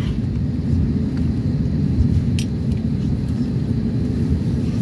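Cabin rumble of an Airbus A320neo rolling along the runway after landing, heard from a window seat over the wing: a steady low rumble of wheels and idling engines, with one brief sharp click about two and a half seconds in.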